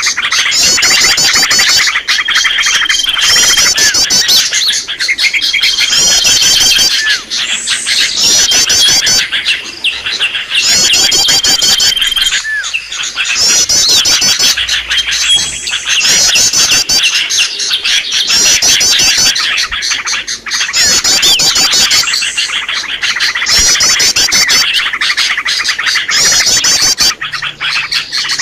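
Bird-lure recording of many small songbirds calling at once: a loud, dense mix of chirps and chattering, with fast trill phrases repeating every couple of seconds and a few short, high held whistles.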